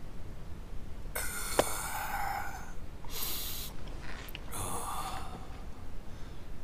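A man breathing heavily and laboriously: three long breaths, the first the longest, the sound of someone in distress.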